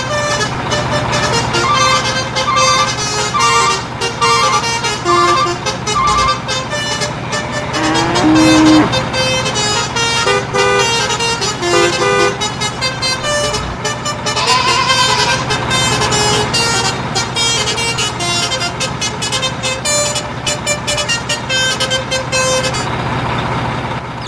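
Upbeat background music: a bouncy melody of short repeated notes over a steady beat and a low hum, with sliding, horn-like effects about 8 and 15 seconds in.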